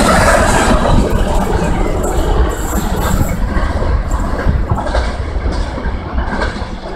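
Container freight train's wagons rolling past on the rails and pulling away, the rumble fading steadily as the end of the train recedes.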